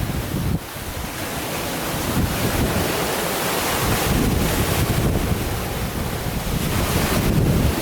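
Wind-driven waves surging and breaking on a rough lake, with strong wind buffeting the microphone in low rumbling gusts.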